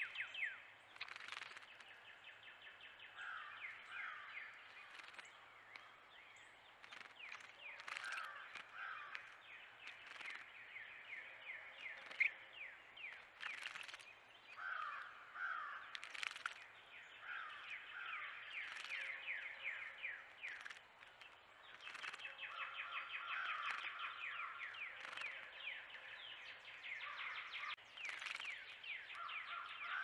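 Carolina wrens calling in long, fast series of short repeated notes, punctuated by brief splashes as a wren bathes in the bird bath.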